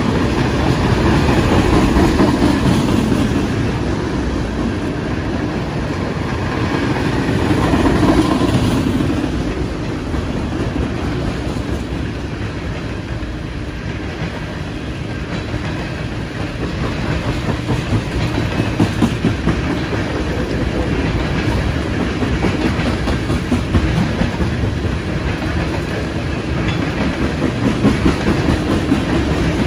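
Freight train of tank cars rolling past, a steady rumble with the wheels clacking over rail joints. The sound swells twice near the start, and the clacking grows more distinct in the second half.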